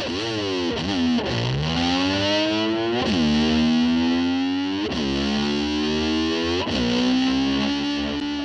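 Distorted electric guitar, played with a slide, imitating a motorcycle: its pitch swoops down and back up about every one to two seconds, like an engine revving, then holds a note between swoops.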